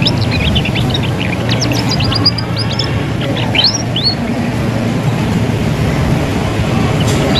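Young canary twittering in quick, thin chirps and short falling sweeps, thick in the first few seconds and then sparse. A steady low rumble of background noise runs underneath.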